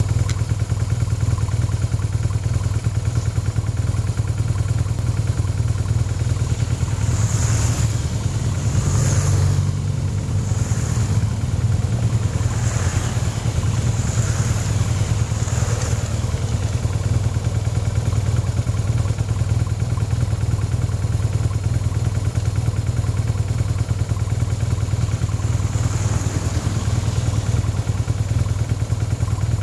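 Several BMW GS adventure motorcycles ride past one after another on a gravel road, about six passes in quick succession about a quarter of the way in, over a steady low rumble. Near the end a van passes.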